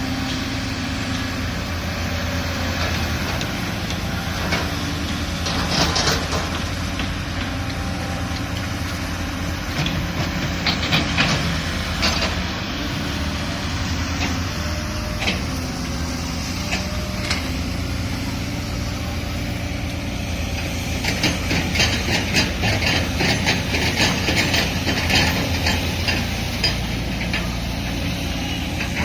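Caterpillar excavator's diesel engine running steadily, with bursts of metallic clanking and rattling as it digs: a few short bursts, then a longer run of rapid clatter in the last third.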